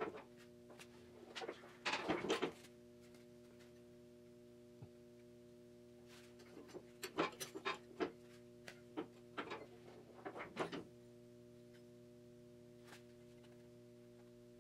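Scattered metallic clicks and knocks from handling a small piece of sheet steel in a manual sheet-metal brake, a short cluster about two seconds in and a run of taps in the middle, over a steady low hum.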